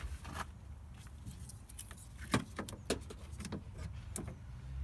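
Scattered plastic clicks and knocks from a Ford Focus Mk2 headlight housing being handled and lined up in the engine bay, the loudest a little past two seconds in, over a steady low rumble.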